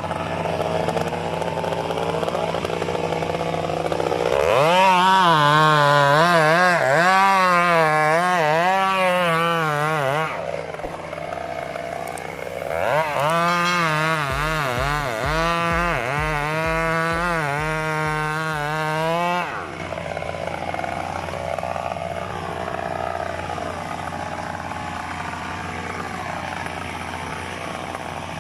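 Two-stroke chainsaw running, revved up and down in two long, wavering bursts of several seconds each, dropping back to a steadier lower running speed between them and afterwards.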